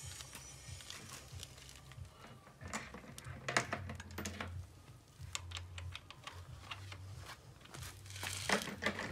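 Irregular rustling and crinkling with scattered light clicks and knocks, from hands working with parts or material, loudest about three to four seconds in and again near the end, over a low steady hum.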